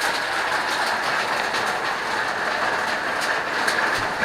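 Steady rushing hiss of a waterfall running high with rain.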